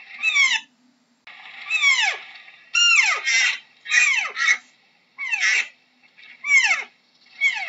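Deer calling: a series of short, high-pitched calls, each sliding steeply down in pitch, about one a second, some coming in quick pairs or overlapping.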